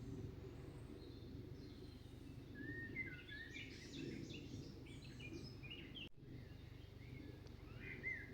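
Small birds chirping and twittering in quick runs of short, rising and falling notes over a steady low background hum, with a brief dropout about six seconds in.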